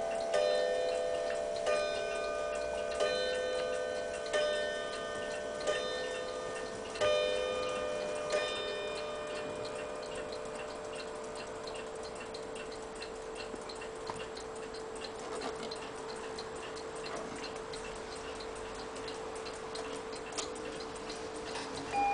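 Chiming clock striking its chime rods about seven times, roughly once every second and a half, then the ringing fades while the clock ticks steadily. A new run of descending chime notes begins at the very end.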